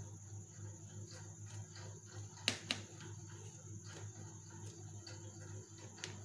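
Light clicks of kitchenware, two close together about two and a half seconds in and another near the end, over a faint steady hum.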